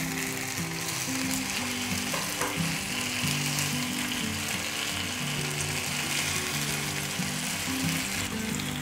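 Pieces of soy-braised chicken sizzling on a hot round stovetop grill pan greased with margarine. Light background music plays underneath.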